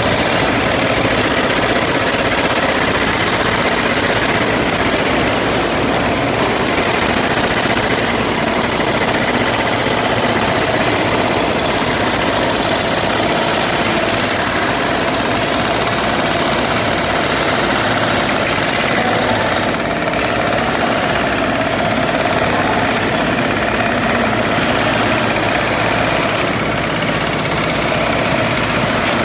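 Concrete breakers hammering continuously and rapidly on reinforced concrete, with machine engines running underneath.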